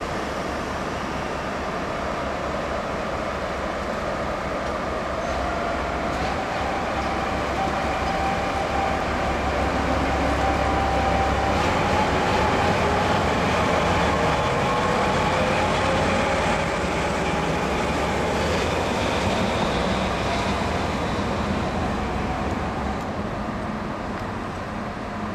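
JNR Class DE10 diesel-hydraulic locomotive moving slowly past on the near track. Its engine and transmission note climbs in pitch and grows loudest as it passes, then fades near the end.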